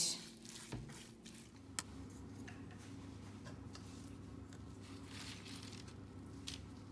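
Faint kitchen handling: a fork working soft choux dough in a non-stick pan with a couple of light clicks, then soft rustling of parchment paper. Under it a low steady hum sets in about one and a half seconds in.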